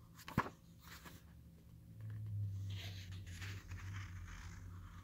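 Paper pages of a book being flipped over, a soft rustle of paper for a couple of seconds, after a small click about half a second in.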